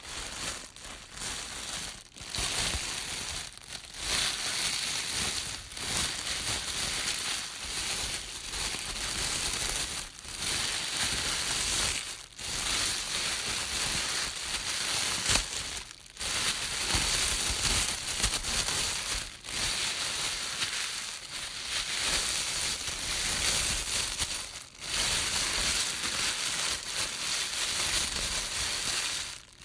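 Plastic bag being crumpled and crunched in the hands: continuous crinkling and crackling, in bouts of about two seconds broken by brief pauses.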